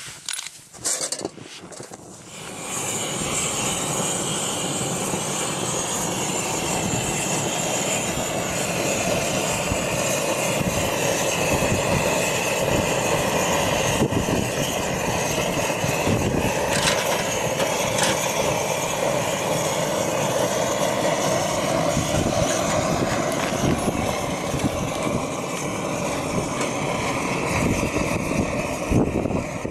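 A few light clicks, then about two and a half seconds in an MSR XGK liquid-fuel stove's burner comes up to a steady, loud rushing burn.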